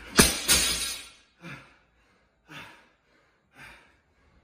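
A barbell loaded with bumper plates set down on a wooden lifting platform, one loud impact with a short ringing after it, then three heavy breaths about a second apart as the lifter recovers from a hard set of deadlifts.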